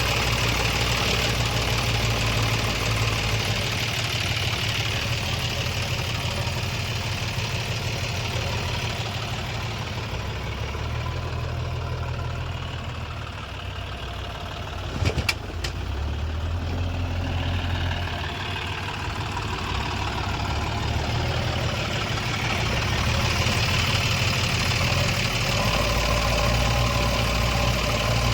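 Diesel engines of a backhoe loader and tractor running at work, easing off towards the middle and building up again near the end. Two sharp knocks come about halfway through.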